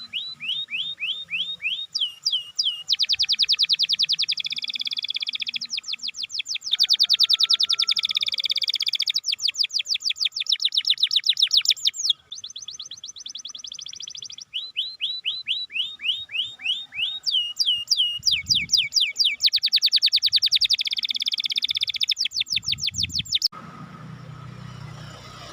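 Domestic canary singing a long song built of phrases, each a run of identical notes: some phrases of slow sweeping notes a few per second, others of very fast trills. There is a brief break about twelve seconds in, and the song stops shortly before the end.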